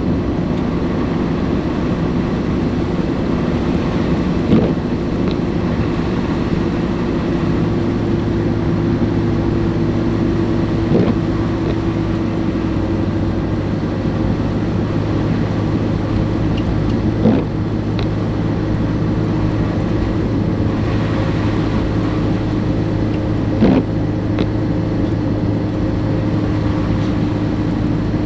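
Car driving along the road: a steady engine and tyre drone with a constant low hum, and a short knock about every six seconds.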